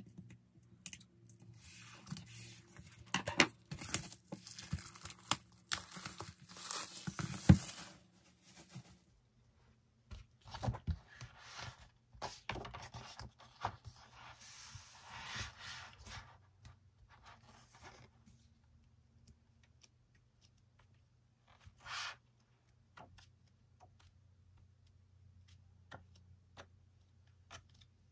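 Hands handling a hardcover photobook album: paper and cardboard rustling and scraping as the cover is opened and the thick pages are turned. Most of the handling comes in the first half, with one short rustle later on.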